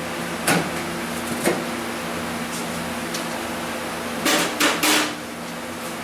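Hammer strikes on sheet-steel floor-pan patch metal: two single blows about a second apart, then three in quick succession near the end, over a steady low hum.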